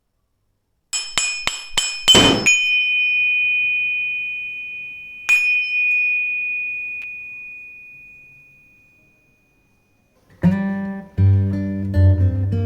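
A metal object struck five times in quick succession, each strike ringing with a clear high tone that fades slowly over several seconds, then struck once more about five seconds in. Acoustic guitar music starts near the end.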